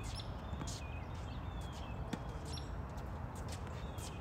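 Outdoor ambience: a steady low rumble with small birds chirping over it, and a faint tennis-ball bounce on the hard court about two seconds in.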